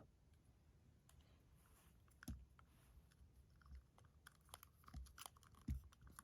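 Faint clicks and small knocks of hard plastic action-figure parts being handled as the figure's face plate is swapped, with two slightly louder knocks about two seconds in and near the end.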